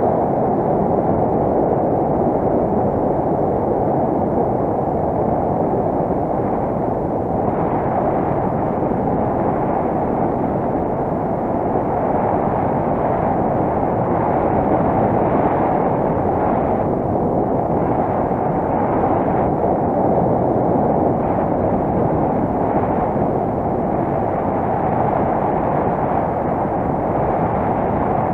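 Wind from the flight airflow buffeting the microphone of a harness-mounted camera on a paraglider: a steady, loud rushing noise with no breaks.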